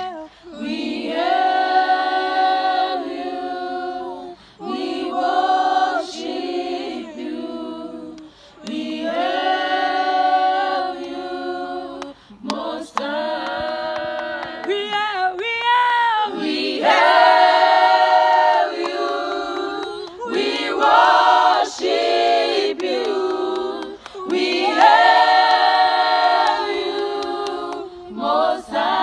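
A small group of women singing a worship song a cappella in harmony, in phrases of about four seconds with brief breaks between them.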